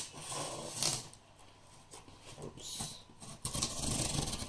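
Cardboard box packaging being pried open by hand: scratchy rustling and scraping in short stretches, with a longer scraping stretch near the end.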